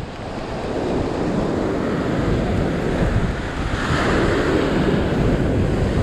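Rough sea surging and breaking against rocks, with wind buffeting the microphone. A wave swells up louder about four seconds in.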